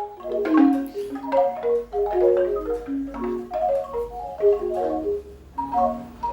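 Bamboo wind chime with tubes tuned to sound like a Javanese gamelan, its hollow tubes knocking together in irregular clusters of short, ringing notes.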